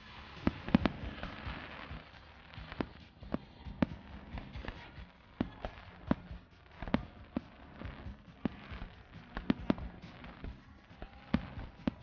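Aerial fireworks shells bursting in an irregular series of sharp bangs, with crackling between them.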